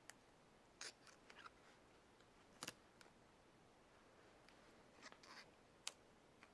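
Faint, scattered clicks and crinkles of an adhesive vinyl skin being handled and pressed around the sides of an Apple TV, about eight short sounds over low room tone.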